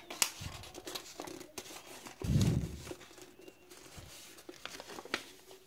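A sheet of white paper rustling and crinkling as it is handled and creased by hand, with scattered short crackles. Two dull thumps, the louder about two and a half seconds in.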